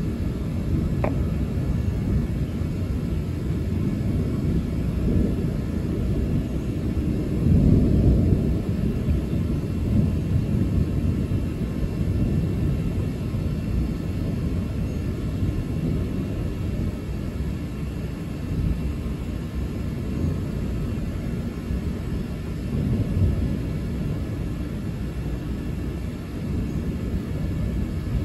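Long, unbroken rolling thunder: a deep, continuous low rumble that swells loudest about eight seconds in and again briefly later on, without letting up.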